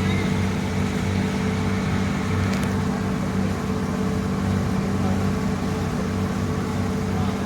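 A passenger boat's engine running steadily: a low, even drone with a regular throb underneath. There is a single faint click a little past two and a half seconds in.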